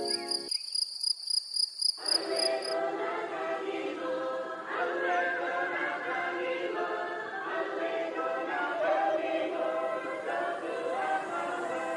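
Music with sustained, choir-like voices, which swells in about two seconds in. For the first few seconds it runs over a high, rapidly pulsing chirp like crickets.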